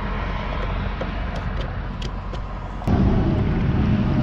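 Plastic spout being fitted onto a red jerry can: a few small, sharp plastic clicks over a steady low rumble. About three seconds in, a much louder low rumble cuts in suddenly.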